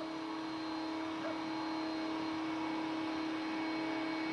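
Steady electrical hum over a constant hiss, with no distinct events.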